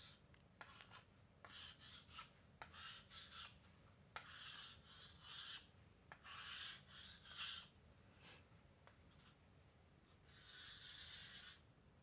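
Chalk drawing lines on a chalkboard: a run of faint scraping strokes, mostly short, with a longer stroke near the end, and a few sharp taps as the chalk meets the board.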